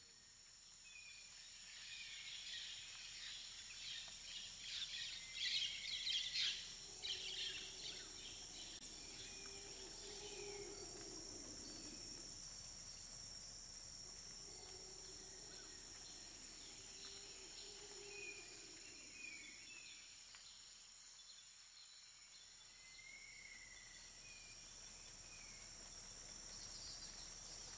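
Outdoor nature ambience: a steady high insect drone with scattered bird chirps, busiest about five to seven seconds in. A faint low hum swells and fades twice in the middle.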